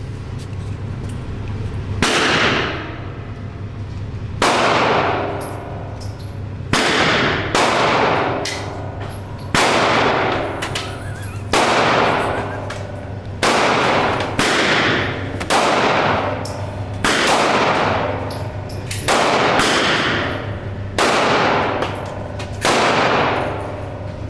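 A string of about a dozen gunshots, fired roughly every one to two seconds, each sharp crack trailing off in a long ringing echo, over a steady low hum.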